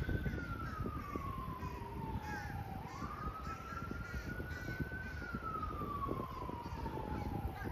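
Emergency-vehicle siren in a slow wail, its pitch rising and falling about every five seconds.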